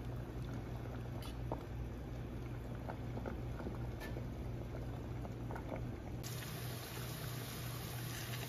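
Pasta water boiling in a stainless steel pot while linguine is stirred with a metal pasta spoon, with scattered light clinks. About six seconds in, it changes to a gentle hissing sizzle of sliced onion, garlic and chili frying in oil on low heat. A steady low hum runs underneath.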